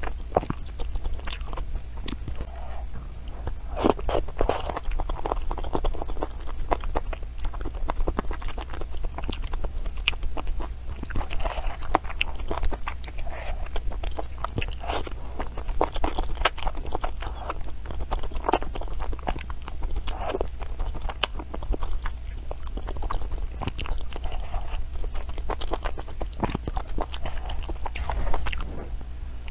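Close-miked chewing and biting of crunchy food: a steady stream of irregular crisp crunches and wet mouth clicks.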